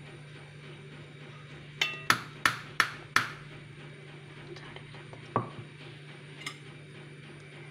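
Metal clinks of a condensed-milk tin and a spatula knocking against a stainless steel bowl as thick toffee is scraped out: a quick cluster of about five sharp, briefly ringing knocks, then a single knock a couple of seconds later and a faint one after.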